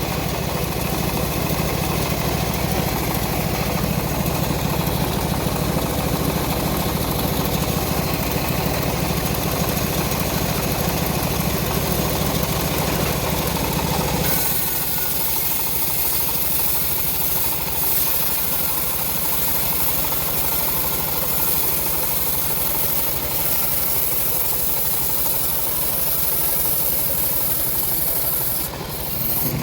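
Engine-driven homemade bandsaw sawmill running steadily while sawing teak logs. About halfway through the low rumble drops away and a high hiss comes up.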